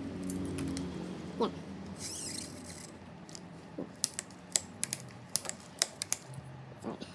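Small sharp clicks and ticks of a bicycle gear cable and housing being fitted into the shifter, coming thick and irregular in the second half, with a short rustle about two seconds in. A low steady hum sits under the first couple of seconds.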